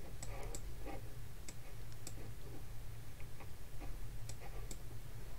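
Faint, unevenly spaced computer mouse clicks over a low, steady electrical hum, as a map view is clicked and dragged.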